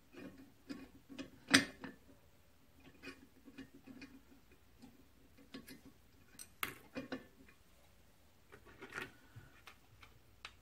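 Small metal parts of a flyball throttle governor on a cast-iron flywheel hub clicking and tapping irregularly as they are handled and fitted, the loudest a sharp knock about a second and a half in.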